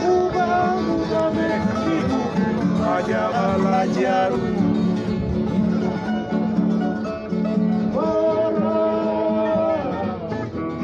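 Papua New Guinea string band playing, with strummed acoustic guitars and voices singing.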